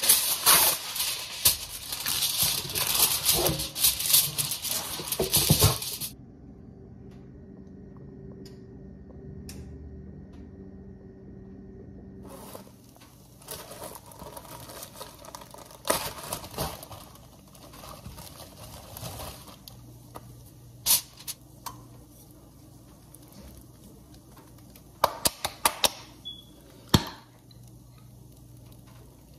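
Aluminium foil crinkling loudly as a sheet is torn off its roll and spread by hand, for about six seconds. After a quiet pause, a plastic bag of tortilla wraps rustles, and a few sharp clicks come near the end.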